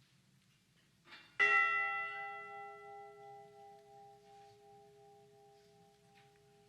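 A memorial bell struck once, about a second and a half in, then ringing on with several clear tones that slowly fade. It is tolled once for one lost crewman.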